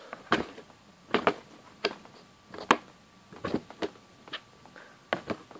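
A kitten playing in a cardboard box: about a dozen light taps and scrapes of paws and claws on cardboard, coming irregularly, some in quick pairs.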